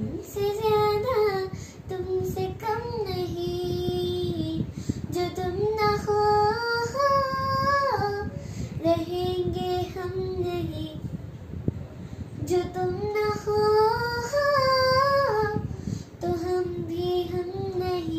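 A young girl singing without accompaniment, in about six long phrases of drawn-out notes with short breaks for breath between them.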